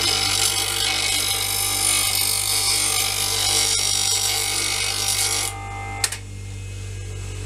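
Steel roughing gouge being sharpened on the abrasive wheel of a running electric bench grinder: a harsh, hissing grind over the motor's steady hum. The grinding stops about five and a half seconds in, leaving the grinder humming, and a single short knock follows.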